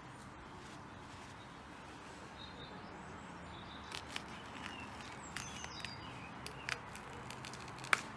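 Quiet outdoor background with faint bird chirps, then a run of small clicks and crunches as a long green pepper is pushed onto a flat metal skewer, the sharpest one near the end.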